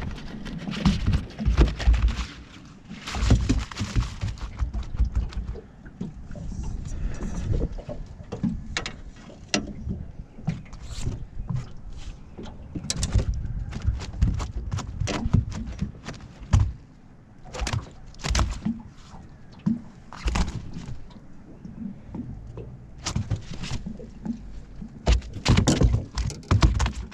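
A run of knocks, thumps and clicks as a landing net is brought aboard a small boat and a freshly caught flathead flaps on the carpeted deck while it is handled and unhooked. The heavier thumps come in the first few seconds, then sharper scattered knocks.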